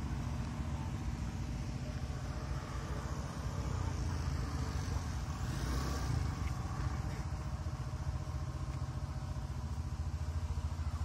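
A motor vehicle engine running steadily at idle, a low continuous rumble, with a short swell of hiss about six seconds in.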